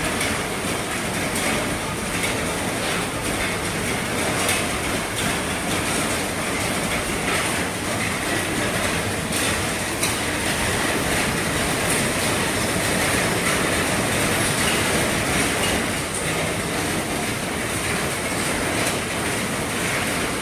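Heavy rain drumming steadily on an RV's roof, a dense even hiss with scattered louder taps of drops.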